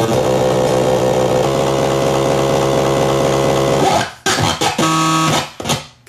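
Circuit-bent Furby's glitching electronic voice run through a voice-changer circuit: a loud, buzzy pitched drone with a repeating warble. About four seconds in it breaks into choppy stutters with a briefly held tone, then cuts out near the end.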